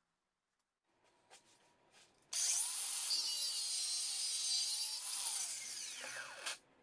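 Small angle grinder with a cut-off disc cutting through a threaded steel rod held in a vise. It starts a little over two seconds in with a harsh hiss and a wavering whine, then the whine falls as the grinder winds down, stopping shortly before the end.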